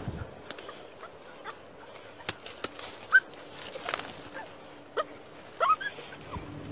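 Dog whining in short, rising whimpers while digging at a burrow, with a cluster of louder whines in the second half. Light clicks and scrapes of soil come in between.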